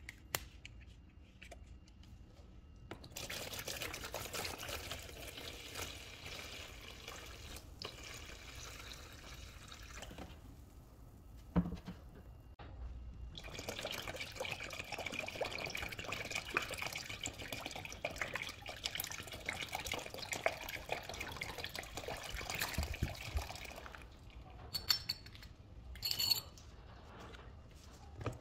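Liquid pouring into a plastic tub in two long, steady pours, vinegar and soapy water for de-yellowing plastic, the second from a glass swing-top bottle. A few short splashes follow near the end as the alarm clock's plastic case is dipped in.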